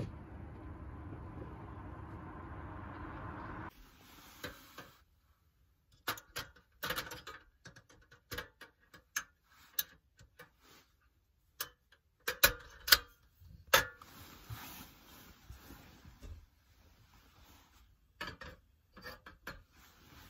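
A steady low rumble for about the first four seconds, which stops abruptly. Then come scattered sharp clicks and knocks, clusters of them, as cookware and items are handled at a portable camp stove in a minivan.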